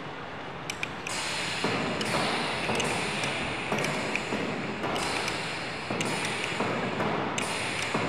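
A mechanism clattering and hissing in repeated strokes, a new stroke starting with a sharp edge roughly every second, with a few thin high pings and clicks.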